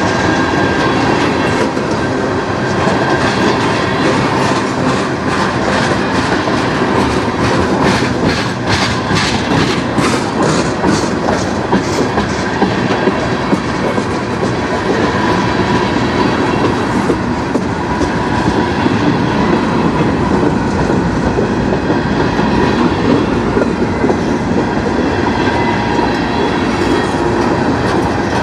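Tank cars of a freight train rolling past close by: a loud, steady rumble of steel wheels on rail, with a quick run of clacks as wheels cross rail joints about a third of the way through.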